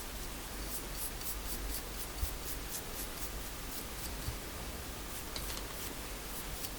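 Paintbrush strokes spreading varnish on wood: a quick run of light swishes, about five a second, easing off about halfway through, over a steady low hum.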